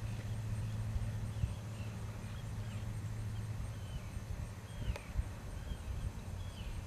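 Scattered faint bird chirps, short calls that fall in pitch, over a steady low hum with occasional low thumps.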